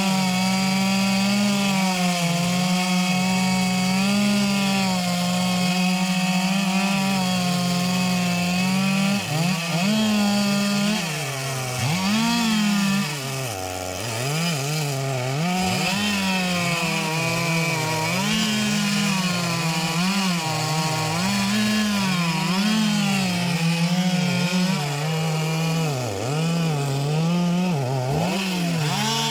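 Two-stroke chainsaw cutting into a large anjili (wild jack) trunk. Its engine runs steadily for about nine seconds, then its pitch repeatedly sags and recovers as the chain bites into the wood under load.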